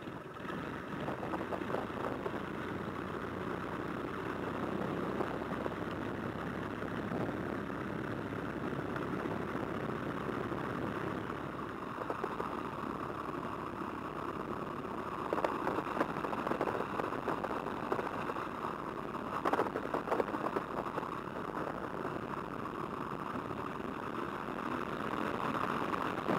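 de Havilland Tiger Moth's Gipsy Major four-cylinder inline engine running steadily just after a hand-swung start, heard with its propeller from the open cockpit. About halfway through, the audio jumps to the engine power checks, and it runs louder near the end.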